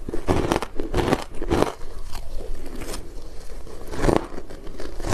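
Chewing and crunching mouthfuls of soft, powdery green-coated shaved ice, picked up close by a clip-on microphone. About half a dozen sharp crunches, with quieter chewing between them.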